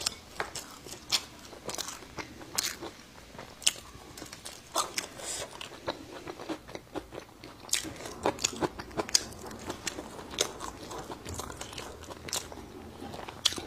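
Close-miked crunching and chewing of sour-spicy pickled ginger slices, with many irregular crisp crunches.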